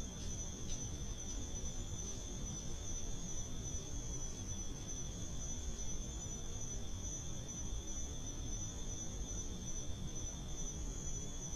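Night insects calling in a steady chorus: a continuous high-pitched trill at two pitches, over a low steady rumble.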